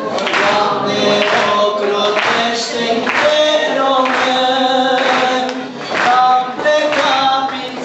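A group of voices singing a song together, holding long notes, with hands clapping along.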